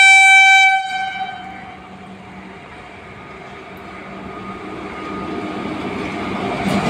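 Indian Railways WAP-4 electric locomotive sounding its horn in one short, loud blast of about a second. The rumble of the approaching passenger train follows and grows steadily louder toward the end.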